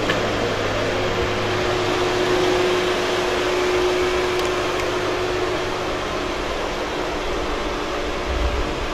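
Steady rushing hiss with a low hum and a faint held tone underneath, and a few low bumps near the end.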